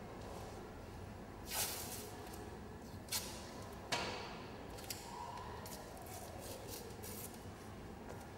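Adhesive tape being pulled and handled against a wall: a short ripping sound, then a sharper rip and a click, with a few light ticks afterwards.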